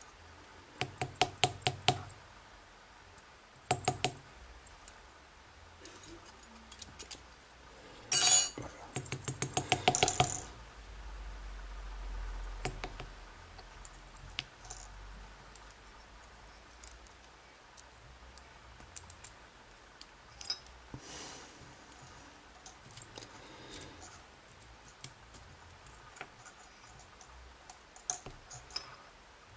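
Small metal clicks and taps from the dimple lock's parts and a tool being worked to free stuck sliders, in quick bursts early on, then sparse light ticks.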